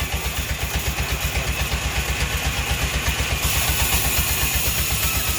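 An engine running steadily at a low speed, with an even low thumping of about eight or nine beats a second.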